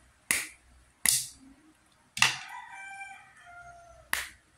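Sharp single pops about once a second as cooked sea snails are sucked out of their shells. A rooster crows about two seconds in, one long call that drops in pitch at its end.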